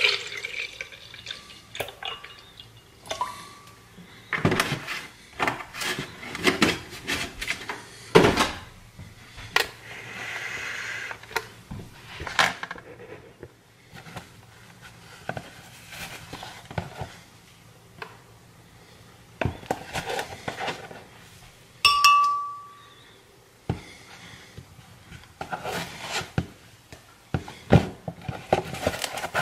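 Kitchen handling around a glass blender jar: milk pouring in at the start, then a run of separate clinks, knocks and rustles as containers and utensils are handled and set down, with one short ringing clink of glass about three quarters of the way through.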